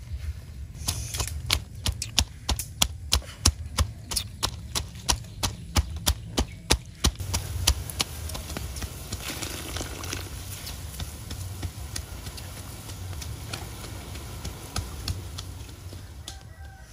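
A run of sharp knocks, about three a second, for the first seven seconds or so. They are followed by the steady bubbling of a wok of boiling water, with the light crackle of the wood fire beneath it.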